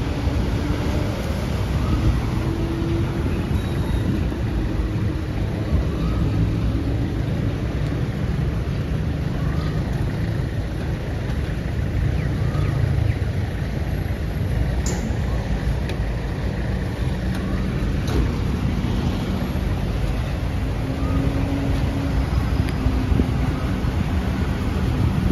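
Volvo FE 300 garbage truck's diesel engine running while the truck stands collecting, mixed with passing road traffic. The engine note is higher near the start and again near the end, and there is one brief sharp clack about fifteen seconds in.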